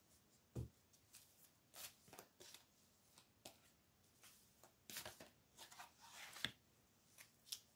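Tarot cards being shuffled by hand: faint, irregular soft snaps and slides of the cards, busier and a little louder about five to six seconds in.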